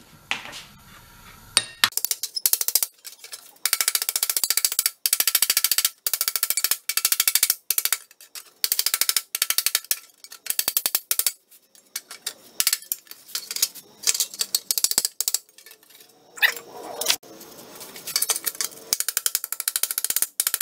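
Hand tools working a rusted steel truck part against an anvil: bursts of rapid metallic clicking, each under a second long, with a sparser stretch of scattered clicks about midway.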